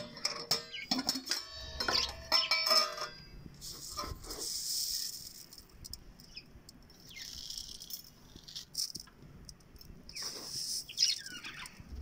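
Bird seed rattling and pouring into a feeder, with small pet parrots chattering.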